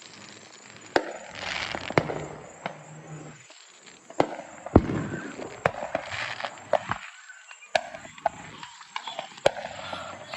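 Fireworks going off: sharp bangs at irregular intervals, the loudest about halfway through, with crackling between them.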